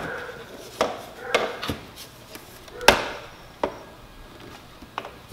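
Irregular handling knocks and taps as a plastic taillight housing and its wiring are handled at the taillight opening in an RV's rear wall, about six in all, the sharpest knock about three seconds in.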